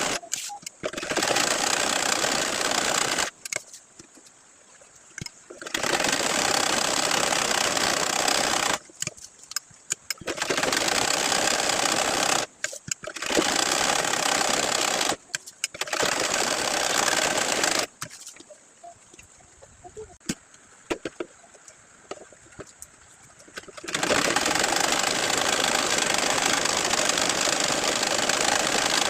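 Sewing machine running in bursts of stitching, each a few seconds long, stopping and starting with short pauses between runs and one longer pause of several seconds.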